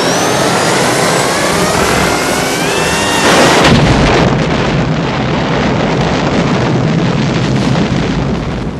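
A helicopter's engine whine climbs steadily in pitch, then a loud explosion hits about three and a half seconds in as the helicopter blows up. A long rumbling blast follows and slowly dies away.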